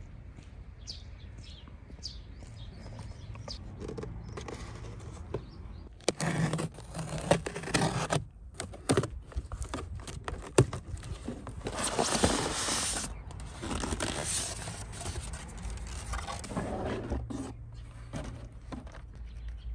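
A cardboard box being unpacked. From about six seconds in there is a busy run of scraping, rustling and sharp clicks as the packing tape is slit with a knife and the flaps are pulled open and rub together.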